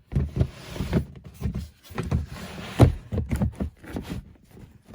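Irregular knocks and thumps with stretches of scraping as a heavy object is shifted and set down into place; the loudest thump comes a little under three seconds in.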